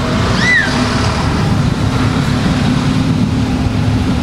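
Engines of a city bus and the cars around it running in a traffic jam: a steady low drone. About half a second in there is one short high chirp.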